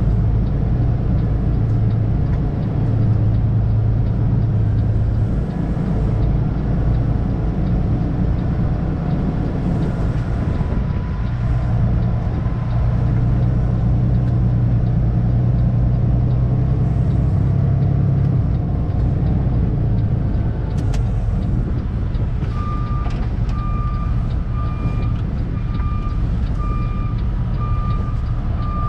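Heavy truck diesel engine running steadily. Near the end a reversing alarm starts beeping, about once a second.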